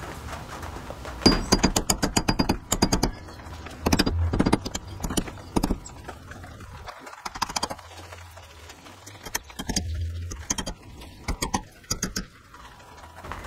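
Quick irregular runs of sharp metallic clicks and knocks as a copper burner coil with a brass nut is handled against a steel bench vise, played sped up.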